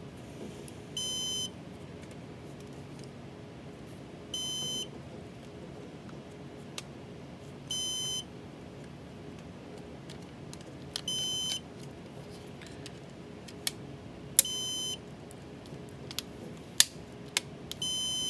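Synology DS1817 NAS alarm beeping: six half-second beeps, evenly spaced about every three seconds, the warning that its RAID volume is degraded after a drive was deactivated. A steady low hum runs underneath, and a few sharp clicks come near the end.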